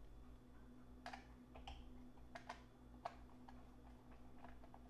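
A handful of faint, irregular clicks and ticks from a screwdriver working small screws out of the underside of a model's display base.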